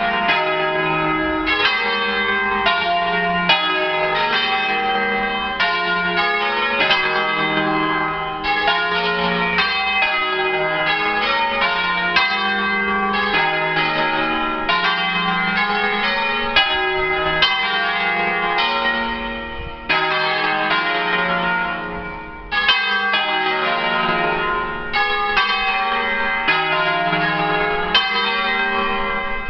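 A ring of five church bells in E-flat major (tenor E-flat 3), cast by Crespi in 1950, swinging freely in full Italian 'a distesa' ringing: the bells strike continuously and unevenly, their notes overlapping and ringing on into one another.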